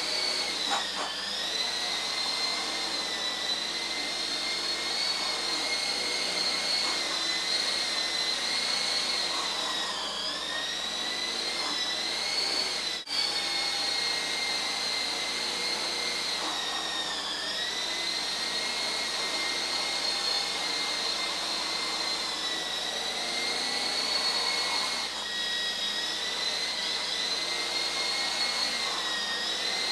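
Small electric coaxial RC helicopter in flight: the motors and rotors give a steady high whine. Its pitch dips and recovers several times as the throttle and controls are worked.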